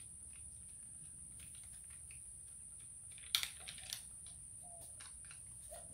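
A few small clicks and taps as a pressure washer's spray gun and wand are handled, the sharpest a little past halfway, over a steady faint high whine.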